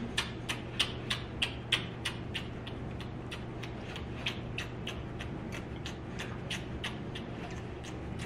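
Rapid lip-smacking kisses, about three a second, one after another without a break, louder for the first couple of seconds and then softer, over a steady low hum.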